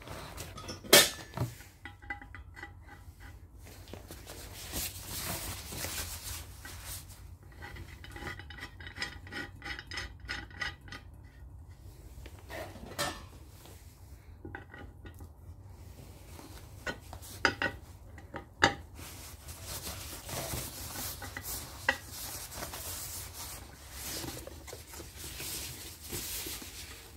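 Handling of a chrome shower head and its packaging: scattered clinks and knocks of metal, some ringing briefly, with stretches of rustling from the plastic wrap and cardboard box.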